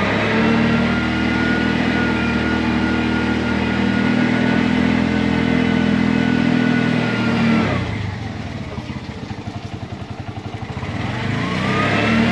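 Engine of a Bajaj auto-rickshaw (torito) pulling away and running: it revs up and holds steady revs for about seven seconds. It drops back as the throttle eases off about eight seconds in, then revs up again near the end.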